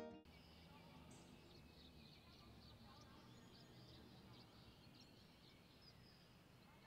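Near silence: faint outdoor ambience with scattered high, short chirps.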